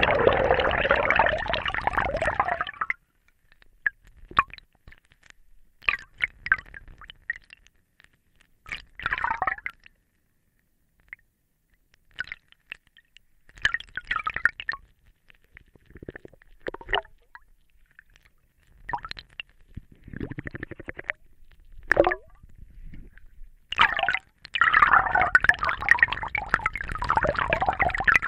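Underwater scuba ambience: bubbling and gurgling from a diver's exhaled air. A dense rush of bubbles comes at the start and again near the end, with scattered smaller bubble bursts between.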